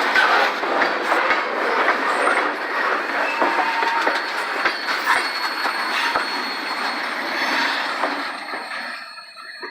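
Freight train cars rolling past on the rails, wheels clicking over rail joints with a thin squeal now and then. The noise fades away near the end.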